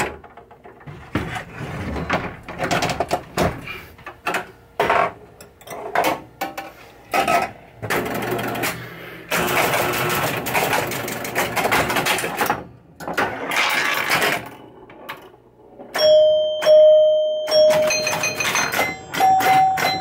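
Irregular clatter of knocks and clicks, then the freshly rebuilt chime box of a 1976 Williams Grand Prix electromechanical pinball machine rings: one chime tone held for about two seconds, then a second, higher chime near the end.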